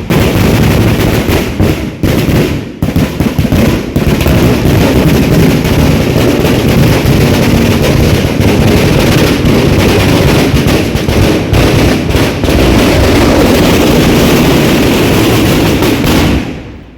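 A long string of firecrackers going off very loudly. Separate bangs come first, then they run together into a continuous crackle that stops suddenly near the end.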